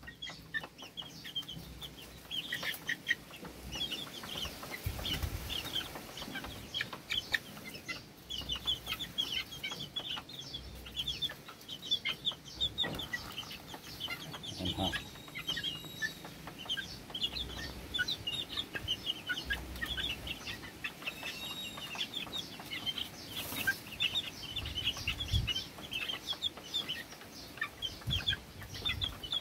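A brood of one-month-old Sweater-cross gamefowl chicks peeping constantly, many short high peeps overlapping one another.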